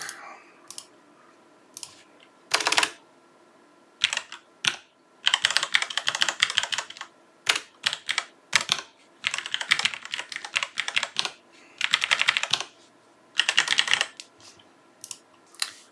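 Loud clicking of a Bluetooth computer keyboard being typed on: scattered single keystrokes and several quick runs of rapid clicks lasting one to two seconds each, with short pauses between.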